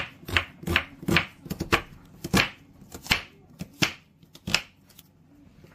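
Kitchen knife slicing a peeled onion on a bamboo cutting board: about a dozen irregular knocks of the blade striking the wood, stopping about five seconds in.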